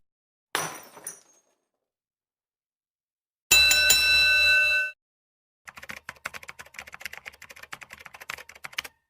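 Three separate sound effects in a row: a short burst with a ringing top that fades within a second, then a loud, steady, bright bell-like tone lasting about a second and a half, then about three seconds of rapid, irregular clicking.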